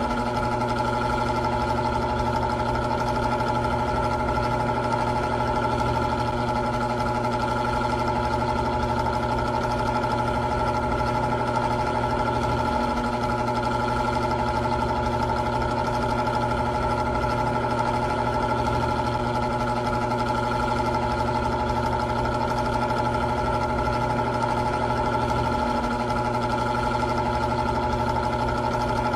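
Old electric fan running steadily: a constant motor hum with several steady higher tones that does not change.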